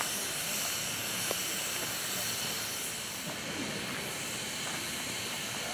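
Steady hiss of escaping steam from standing steam locomotives, LMS Jubilee class 4-6-0 No. 45690 'Leander' among them.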